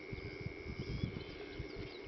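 Open-air bush ambience: a steady high-pitched whine runs under a low rumble with irregular soft low thumps, and a few faint bird chirps come and go.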